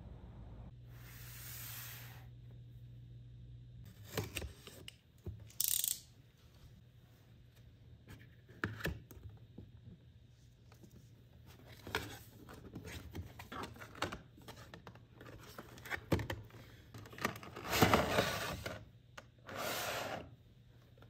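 Cardboard figure box and clear plastic blister tray being handled: the flap opened and the tray slid out, giving scattered rustles, scrapes and light clicks. The longest and loudest scrape comes near the end.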